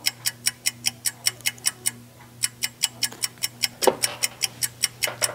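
Rapid, evenly spaced sharp ticks, about six a second, with a brief pause about two seconds in, over a faint steady hum.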